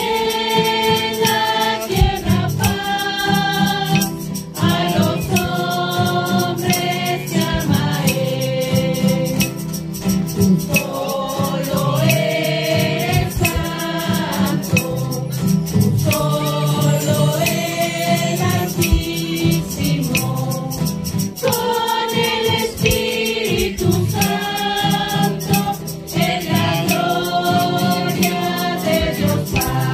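Devotional music for the Virgen del Carmen: several voices singing together in held, stepping lines, with rattles shaking along.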